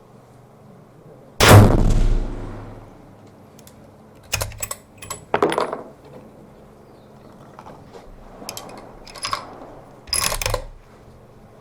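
A single rifle shot about a second and a half in, its sound trailing away over about a second. After it come several sharp metallic clicks and clacks of the rifle being handled, in two groups.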